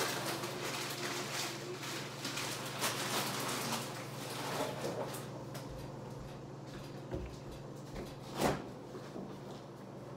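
Household rustling and clattering, dense for the first few seconds and then thinning out, over a steady low hum. One sharp knock comes about eight and a half seconds in.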